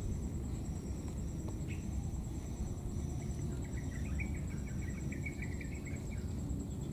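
Outdoor insect ambience: a steady, high trilling note pulsing evenly, with a low rumble underneath. About halfway through comes a short run of fast, high chirps.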